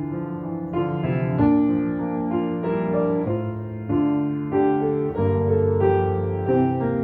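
Piano playing a slow instrumental piece, held chords changing about every second.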